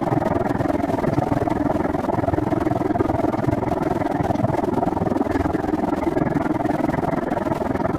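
Steady rushing and rattling noise from a camera on a moving bicycle: wind buffeting and rolling noise, unchanged throughout.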